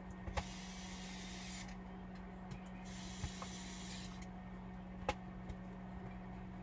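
Two short hissing bursts, each just over a second long, and a few sharp clicks over a steady low hum, from hands and tools working on a laptop's parts.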